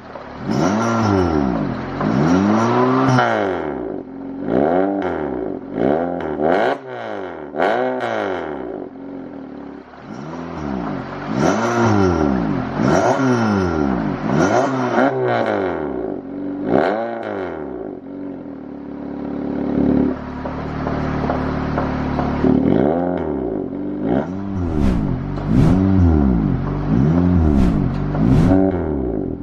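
Honda City Hatchback engine revved again and again in short blips through an NDK NV-Tech full exhaust system with its valve closed in silent mode. The revs rise and fall about once a second, settling to a steady idle for a few seconds after the middle before the blips start again.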